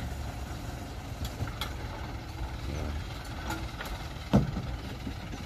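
Engine running steadily at low revs, with a single sharp knock about four seconds in.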